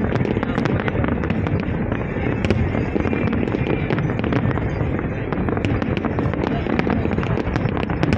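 Fireworks display going off in a continuous barrage: a dense rumble of bangs with many sharp crackles scattered through it, without pause.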